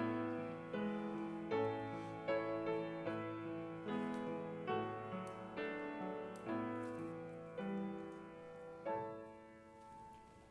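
Piano playing slow, quiet chords, a new chord struck about every second. It ends on a final chord near the end that rings out and fades away.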